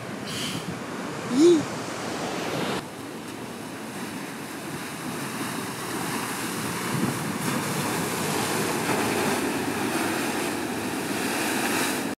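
Ocean surf breaking and washing, with wind buffeting the microphone. A short, loud, rising-and-falling call stands out about a second and a half in, and the surf noise steps down abruptly near three seconds in.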